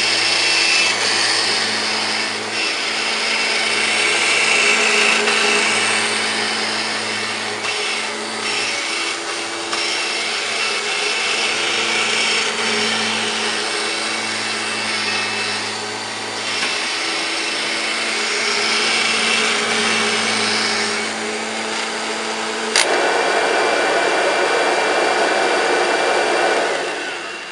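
1999 Kirby G5 upright vacuum cleaner running on carpet, its motor hum and airflow swelling and dipping as it is pushed back and forth. Near the end a sharp click sounds, after which the steady hum drops out and a rushing noise remains.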